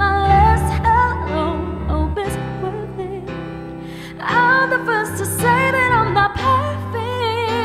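Female singer performing a pop ballad over electric keyboard, singing held notes and wavering vocal runs over sustained low chords. The voice grows louder about four seconds in.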